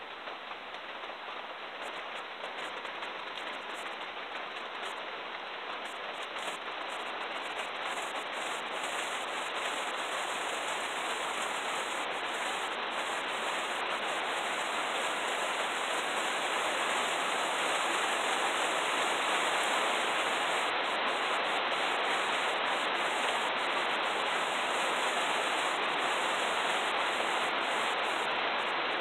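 Steady rain falling, a continuous even hiss that grows gradually louder.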